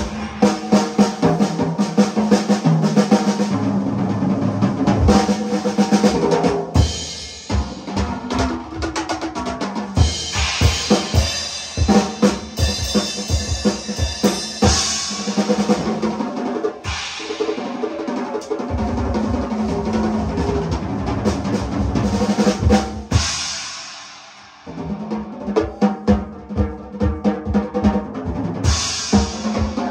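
Music driven by a drum kit: a busy beat of kick and snare hits over sustained pitched instruments. It fades briefly about 24 seconds in, then the beat comes back.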